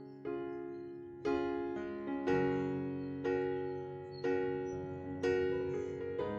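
Background piano music: gentle chords struck about once a second, each left to ring and fade before the next.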